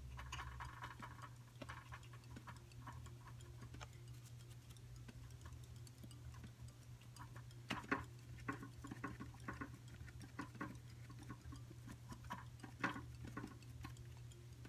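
Damp sponge dabbed against a stretched canvas on an easel: faint, irregular soft taps, more frequent in the second half, over a steady low hum.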